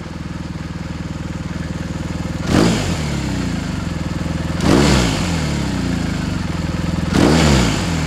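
BMW R1250GS Adventure's boxer twin idling through a Jekill & Hyde exhaust with catalysed header, its valve set half open in dynamic mode. The throttle is blipped three times, each rev rising quickly and falling back to idle.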